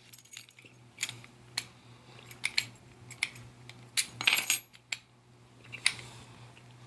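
Light metal clicks and clinks of lock picks and keys being handled against a practice lock: scattered single ticks, with a short rattling cluster a little past halfway.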